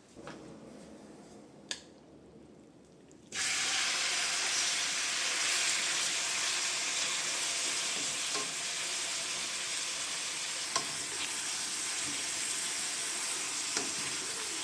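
Food sizzling in a hot frying pan, starting suddenly about three seconds in as it goes into the oil, then a steady sizzle with a few small ticks.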